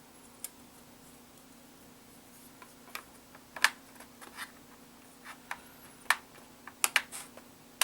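Laptop's plastic bottom cover being fitted and pressed into place by hand: a scattered series of short, sharp clicks and taps over a faint steady hum.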